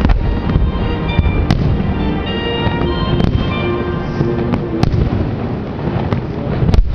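Aerial fireworks display: a continuous rumble of shell bursts, with sharp single reports about every one and a half seconds, the loudest near the end.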